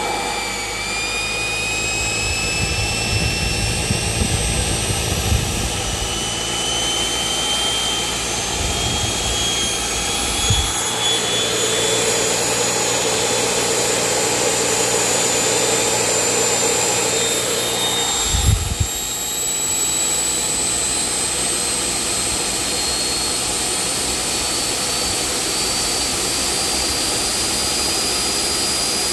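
A 70 mm electric ducted fan in a 3D-printed turboshaft housing whines at high power, driving a printed power turbine with a propeller as its load. Its pitch climbs slowly and steadily as it is run up towards full power, with two brief low thumps about ten and eighteen seconds in.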